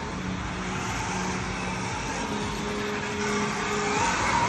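Electric KTM Freeride dirt bikes riding a dirt track, their motors whining steadily over the tyre noise. Near the end one whine climbs in pitch and gets louder as a bike accelerates.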